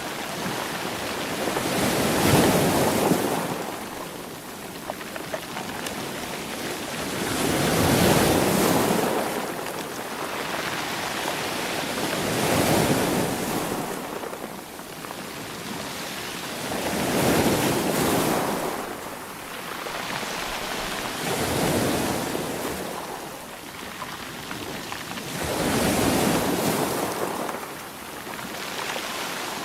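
Sea waves washing in, about six surges that swell and fade one every four to five seconds, with a steady hiss of surf between them.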